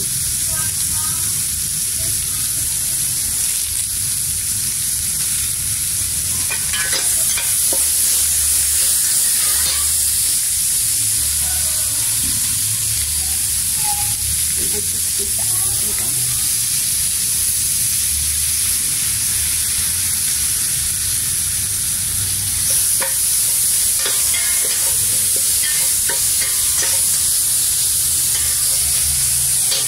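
Kroeung herb paste and leaves frying in an aluminium pot, a steady sizzling hiss with a low hum underneath. A metal ladle stirs and scrapes the pot now and then.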